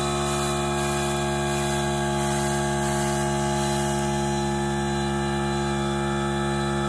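Steady hum of an electric motor running, many even tones held without change.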